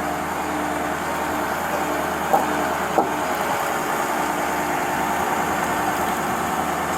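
Tow truck engine running steadily at idle, with two short sharp knocks about two and a half and three seconds in.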